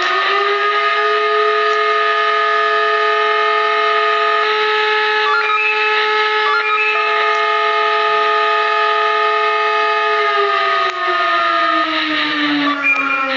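Siren sounding for a monthly test alarm: it reaches full pitch right at the start, holds one steady tone for about ten seconds, then begins to wind down in pitch near the end.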